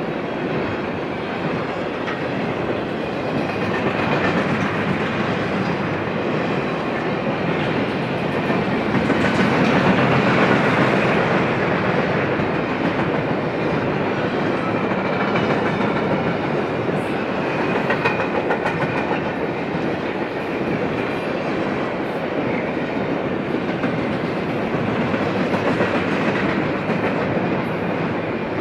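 Double-stack intermodal train's container well cars rolling past: a steady rumble and clatter of steel wheels on the rails, slightly louder about ten seconds in.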